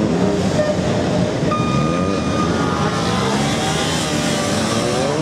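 Kawasaki ZRX1200 DAEG's inline-four engine revving up and down over and over as it is ridden through tight cone turns, its pitch rising and falling every second or so.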